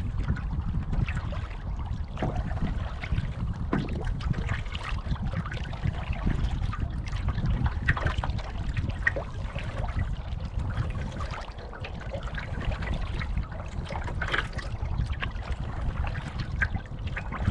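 Water splashing and trickling irregularly around a moving canoe, over a steady low rumble of wind on the microphone.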